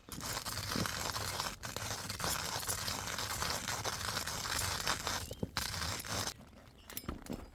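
Rustling and crinkling of handled material, like a bag or packaging being rummaged, for about six seconds with a brief break near the start, then stopping abruptly.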